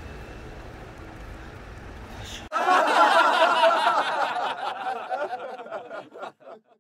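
A low, steady outdoor rumble. Then, after an abrupt cut about two and a half seconds in, a loud burst of laughter sound effect that trails off into scattered chuckles and stops just before the end.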